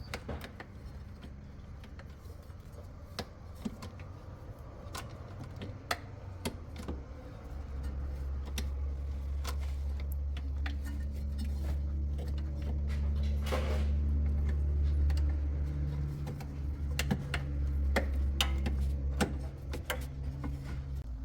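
Metallic clicks and clinks as a replacement drain motor and its lock are fitted to a washing machine, over a low steady hum that grows louder about a third of the way in and eases near the end.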